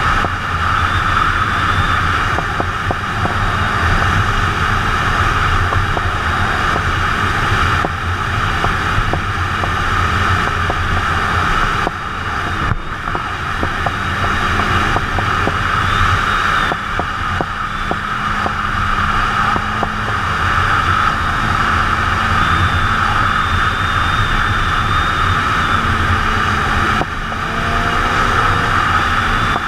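Suzuki sport motorcycle riding at speed: a steady engine drone under heavy wind rush on the camera. The level dips briefly three times, about a dozen seconds in, near seventeen seconds and near the end.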